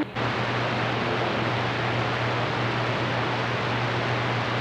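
Steady hiss of static from a CB radio's speaker on channel 28, with a low steady hum underneath. The incoming transmission cuts off just at the start, leaving the receiver open on band noise.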